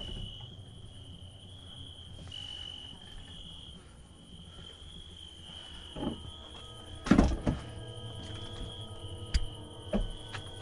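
Crickets chirping steadily in a continuous high pulsing trill. A few sudden thumps cut in from about six seconds in, the loudest at about seven seconds.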